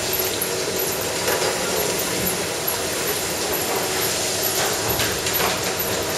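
Milking-parlour machinery running steadily: the vacuum pump and pulsators of the milking machine make an even mechanical drone, with a few faint knocks.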